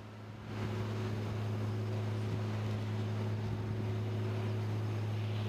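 Big scooter's engine idling steadily with an aftermarket exhaust, a constant low hum that comes up about half a second in and holds an even pitch.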